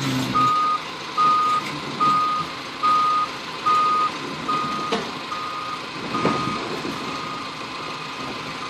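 Forklift warning alarm beeping: a single-pitched beep repeating a little more than once a second, growing faint after about six seconds. A couple of short knocks come near the middle.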